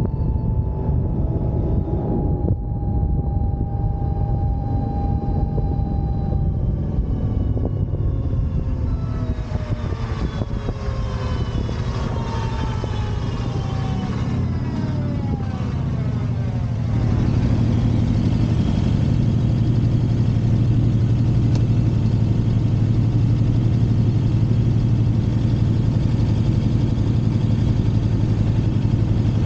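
Electric motorcycle on the move: a thin motor whine that slowly drops in pitch, then several whines sliding down together as the bike slows. Just past halfway it gives way to a sudden, louder, steady low rush of wind and road noise.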